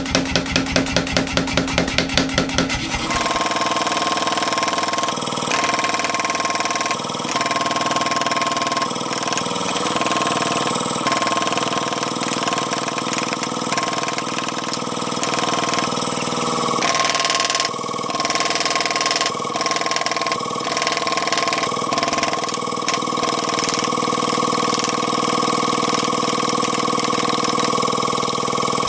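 Power hammer running and striking hot steel through a drawing die attachment: a fast, even rhythm of blows, about six a second. About three seconds in it turns into a denser, steadier mechanical running sound with a constant hum under the blows.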